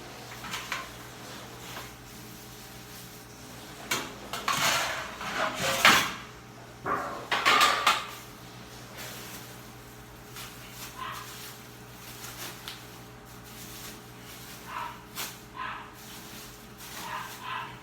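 Handling noises as pork is packed away: bursts of rustling and clattering from plastic bags and kitchenware about four to eight seconds in, then a few light taps and clicks.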